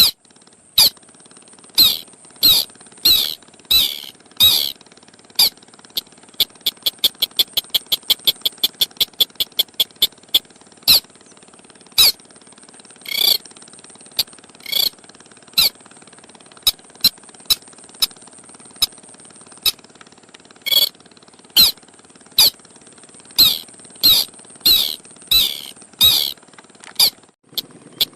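Sintar sawah (ruddy-breasted crake) calling: sharp, high, downward-sliding notes repeated over and over, at times run together in quick series of several notes a second. A steady high hiss lies beneath the calls.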